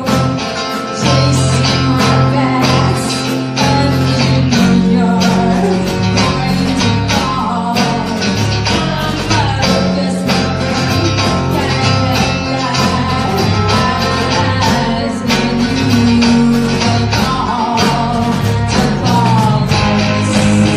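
Rock band playing live: electric guitar and drums, with a woman singing over them in stretches.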